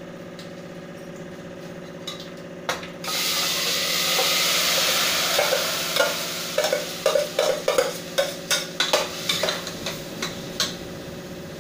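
Food tipped into hot mustard oil in a pressure cooker, sizzling loudly from about three seconds in and slowly dying down. A metal spoon then stirs it, clinking and scraping against the pot over and over.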